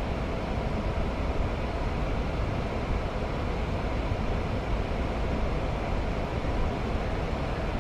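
Steady rush of airflow and engine noise on the flight deck of a Boeing 787-9 in the climb after takeoff, with no distinct tones or clicks.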